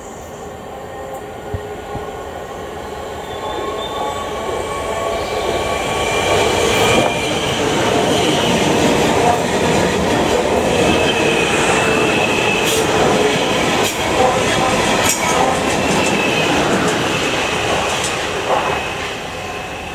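A South Western Railway electric multiple unit passing on the line. It grows louder over the first several seconds, stays loud for about ten seconds with several steady high tones and occasional sharp clicks, then eases slightly near the end.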